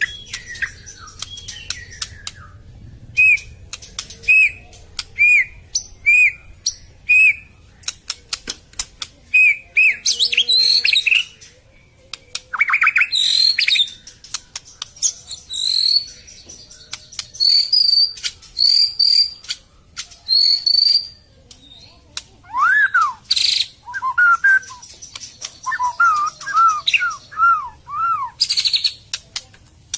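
White-rumped shama singing a varied song of repeated whistled notes and sharp clicks, the loud, coarse 'tembakan' shot phrases prized by keepers. It opens with a short arched note repeated about once a second, moves to higher repeated notes, and near the end drops to a run of lower arched whistles.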